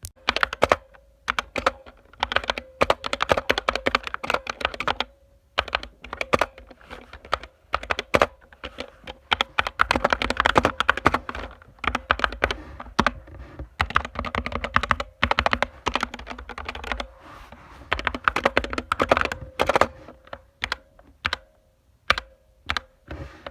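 Skyloong SK64 mechanical keyboard being typed on rapidly, its keys clicking in dense runs broken by short pauses.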